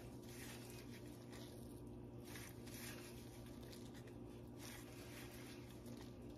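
Faint, irregular squishing of soft, wet mozzarella curds being squeezed together by gloved hands, with whey squeezing out, over a steady low hum.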